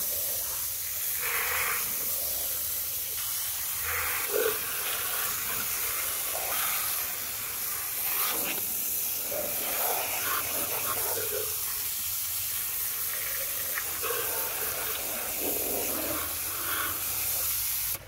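Steady hiss of a thin jet of water spraying onto a mud-covered plastic toy excavator, with uneven spattering as the water washes the mud off. The hiss cuts off suddenly at the end.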